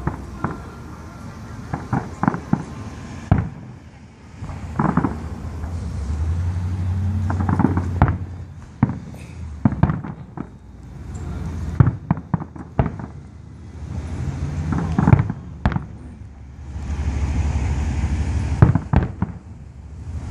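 Aerial firework shells bursting: a string of sharp booms at uneven intervals, several coming in quick clusters of two or three.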